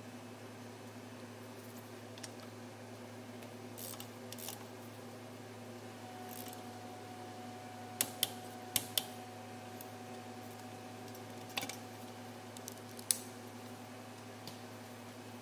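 Steady low hum with a handful of light, sharp clicks and taps, two quick pairs of them about halfway through and single ones after.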